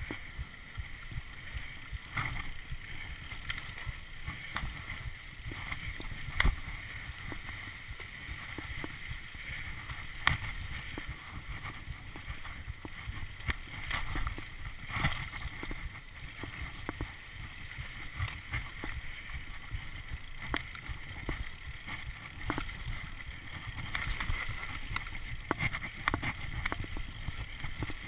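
Mountain bike riding fast down a dirt forest trail: tyres rumbling over the ground, with knocks and rattles from the bike over bumps, about 6 and 10 seconds in the sharpest. Wind is on the microphone.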